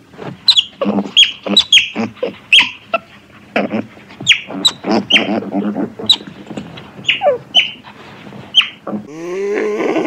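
Otter chirping: an irregular run of sharp, high, squeaky chirps, each falling in pitch, about two a second. About nine seconds in, a different, lower wavering animal call takes over.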